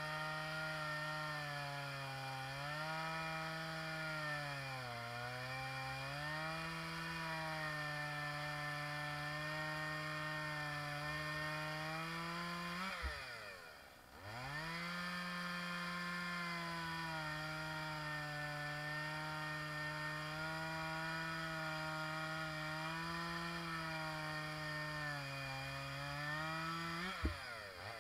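Stihl MS 170 chainsaw, a 30 cc two-stroke, running at full throttle while cutting a mulberry log, its pitch sagging a little under load. About halfway the engine note drops as the throttle is let off, then quickly revs back up for a second long cut. Near the end the note drops off again as the cut finishes.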